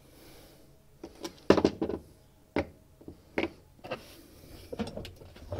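Irregular knocks and clunks of the washing machine's panels and parts being handled and moved, about nine in all, the loudest a quick cluster about one and a half seconds in.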